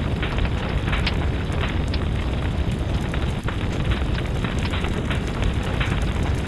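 Fireplace fire crackling, with frequent short pops and snaps over a steady low rumble.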